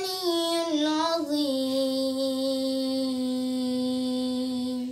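A boy's voice chanting in melodic Qur'anic recitation style (tajwid), drawing out the final phrase of the recitation. The pitch steps down over the first second and a half, then settles on one long held note that stops just before the end.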